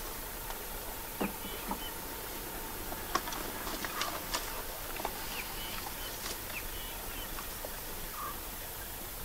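Faint grassland ambience: scattered crackles and clicks of dry grass and twigs as white rhinos walk through it, with a few short, falling bird chirps.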